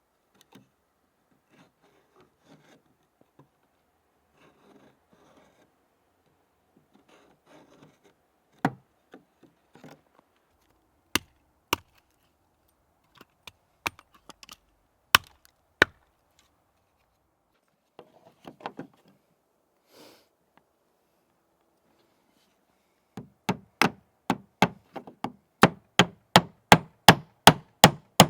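Hand tool striking wood: scattered single knocks, then, from near the end, a quick even run of blows, close to three a second, as when nailing oak shingles onto a wall.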